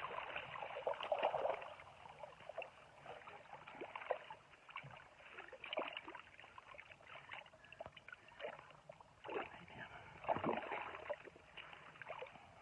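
Water splashing and sloshing in short, irregular bursts as a keepnet heavy with barbel is worked in the river, with the loudest splashes about a second in and near the end.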